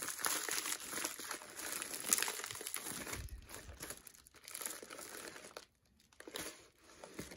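Plastic mailer bag and bubble wrap crinkling and rustling as they are unwrapped by hand, in irregular bursts that thin out near the end.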